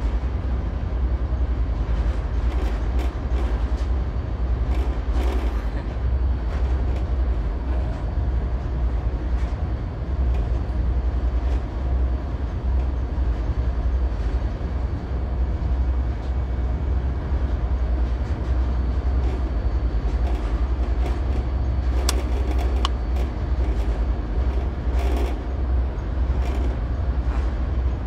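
Steady low rumble of a cargo ship's running engine, with a few short clicks now and then.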